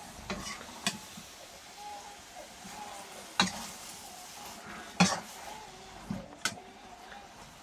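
Kitchen utensils clinking against dishes or cookware: about five separate sharp clinks spread over several seconds, the loudest two in the middle, with quiet between.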